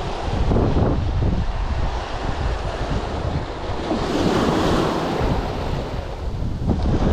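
Surf breaking and washing over a cobble beach, with wind buffeting the microphone. The wash swells up about four seconds in, then eases.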